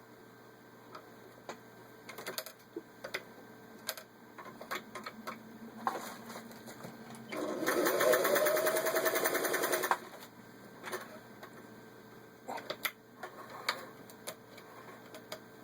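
Vintage 1961 Singer 503A sewing machine stitching through a 1/8-inch thick leather-and-vinyl belt: scattered clicks and knocks for several seconds, then the machine runs in one burst of about two and a half seconds, its motor whine rising in pitch, followed by more scattered clicks.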